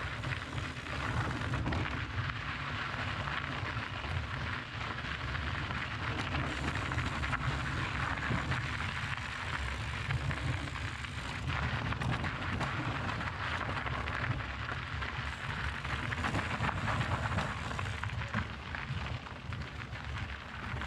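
Mountain bike rolling over rocky, gravelly trail: continuous tyre crunch on loose stones with frequent small rattles and knocks, and wind buffeting the microphone as a steady low rumble.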